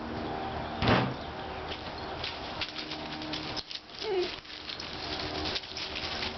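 Scuffling with small clicks and knocks as a cat and a puppy play, with a loud thump about a second in and a short falling animal cry a little past the middle.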